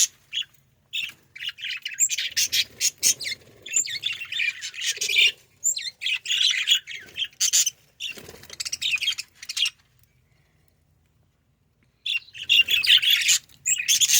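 A flock of budgerigars chirping and chattering busily. The sound cuts out for about two seconds a little past the middle, then the chirping resumes.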